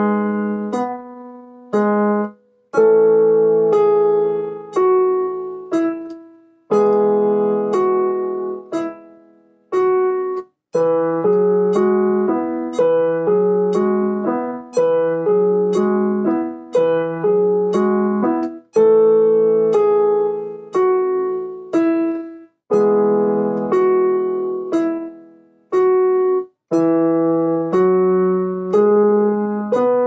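Solo piano: chords and a melody struck and left to ring, in phrases about four seconds long, each broken off by a brief pause.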